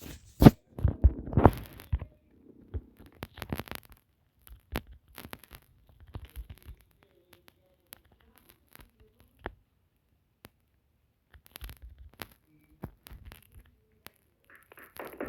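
Scattered clicks, taps and rustling handling noises, with a run of louder knocks and thumps in the first two seconds and more around the end.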